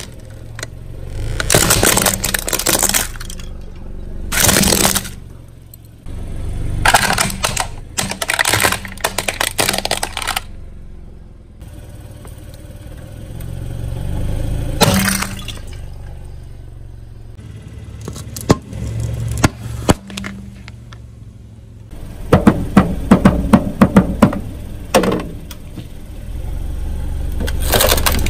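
A car tyre crushing plastic toys and other objects, which crack and crunch in a series of separate bouts, some of them rapid strings of sharp snaps. A low hum from the car runs underneath.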